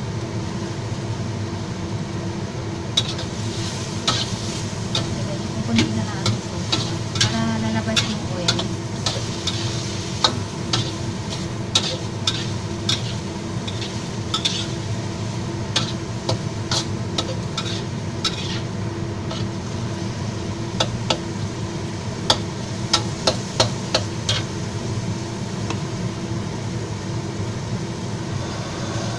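Metal spatula scraping and clanking against a wok as pork and celery are stir-fried, over a steady sizzle from the hot pan. The clanks come in quick irregular runs, thick through most of the first two-thirds, then pause for a few seconds before a shorter run.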